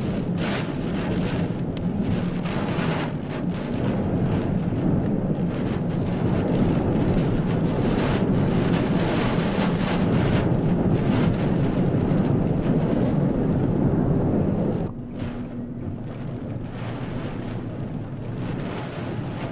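Typhoon storm noise: heavy rain and wind rushing and buffeting the microphone, a dense steady roar that drops in level about fifteen seconds in.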